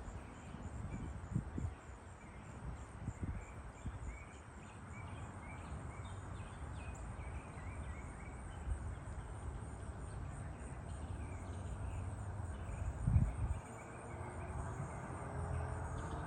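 Outdoor ambience: a low wind rumble on the microphone, faint short high chirps, and a single louder thump about thirteen seconds in.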